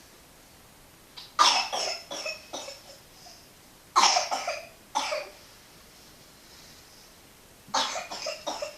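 A coughing fit in three bouts, each several coughs in quick succession: one about a second and a half in, one about four seconds in, and one near the end.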